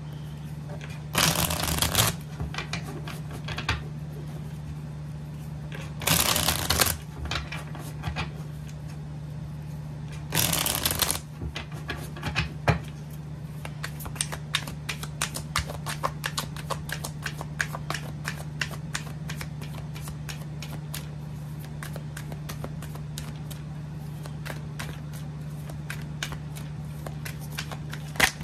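A tarot deck being shuffled by hand: three loud rushes of cards sliding against each other, each about a second long, in the first eleven seconds, then a long run of quick light card clicks. A steady low hum runs underneath.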